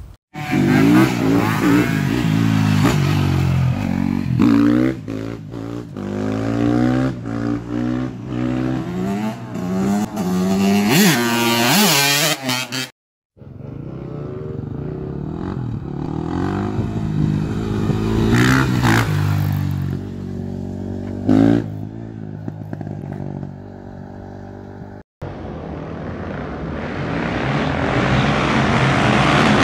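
Motorcycle engine revving over and over, its pitch rising and falling, broken by two sudden short drop-outs; near the end a motorcycle grows steadily louder as it approaches.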